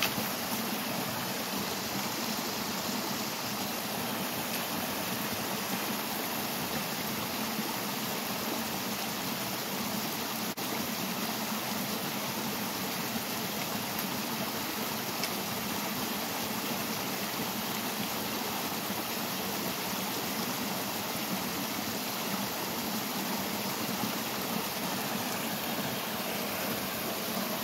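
Small waterfall pouring out of culvert pipes into a shallow stream: a steady, unbroken rush of water.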